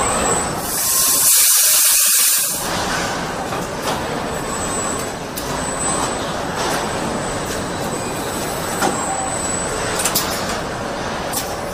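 Car assembly-line machinery running: a loud hiss of air for about two seconds near the start, then steady factory clatter with a few sharp clicks near the end.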